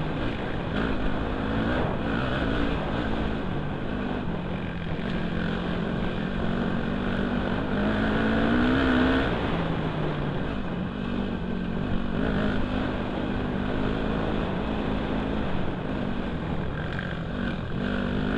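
Dirt bike engine heard from the rider's helmet camera, running steadily along a trail with the revs rising and falling; the revs climb about eight to nine seconds in, then drop.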